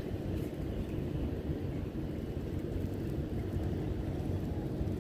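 Steady low rumble of wind buffeting the microphone, rising and falling unevenly.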